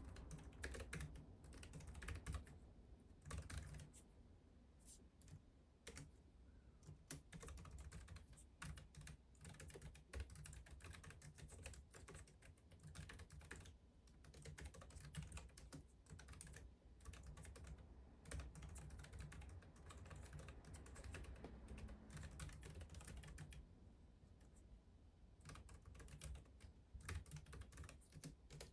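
Typing on a Keychron B1 Pro slim keyboard: a steady stream of quiet key clicks, with short pauses between runs of keystrokes.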